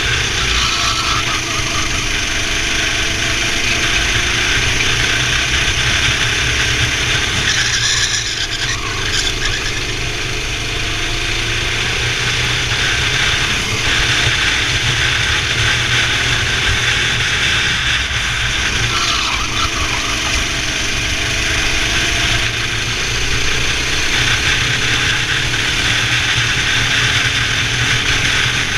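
Racing kart's engine running hard around a tight indoor track, its pitch rising and falling again and again as it revs out of corners and drops off into the next.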